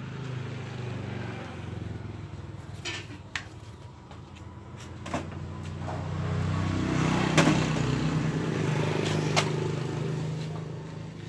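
A motor vehicle engine running, growing louder and then fading as it goes by, with a few sharp clicks and knocks over it.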